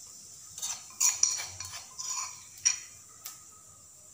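A metal spoon clinking and scraping against a dish half a dozen times, scooping up ginger-chilli paste, over a faint sizzle of cumin seeds in hot oil.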